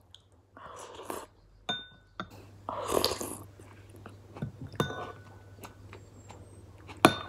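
Metal spoon clinking against a ceramic bowl several times, each clink ringing briefly, the loudest near the end. Between the clinks come two slurps as iced dessert with grass jelly is sucked off the spoon.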